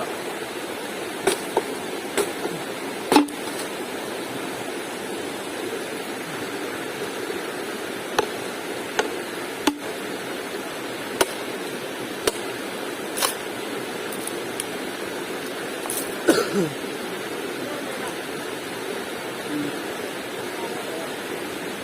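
Steady rushing of flowing river water, with about ten sharp clicks or knocks scattered through it.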